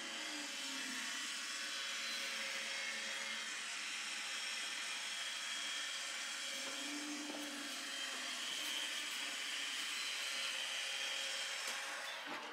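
iRobot Roomba Max 705 Combo robot vacuum running, its suction motor and brushes making a steady whirring hum. A high whine comes in and the sound grows slightly louder about two thirds of the way through.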